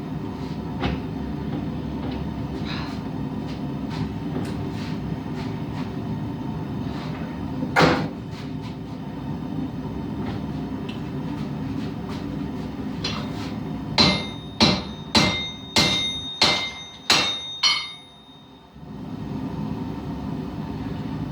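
Hammer blows on hot steel on an anvil over the steady roar of a forge. One blow comes about a third of the way in, then a run of about seven ringing strikes near the end, a little under two a second. The roar drops out briefly just after the strikes, then comes back.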